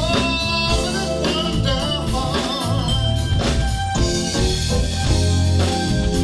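Live band music: a singer's voice over the band, with a steady bass line and drum hits.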